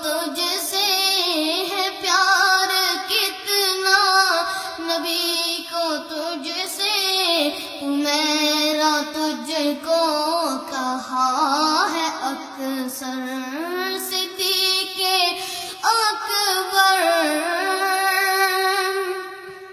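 A boy singing an Urdu devotional song (manqabat) into a microphone, in a held, ornamented melody of long sustained notes with gliding turns.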